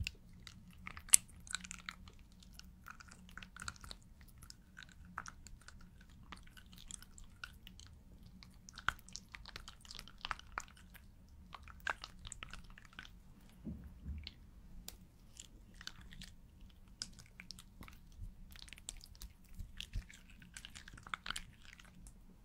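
A pen drawing on a clear sheet: short, irregular scratchy strokes and light ticks of the tip on the surface, over a faint low hum.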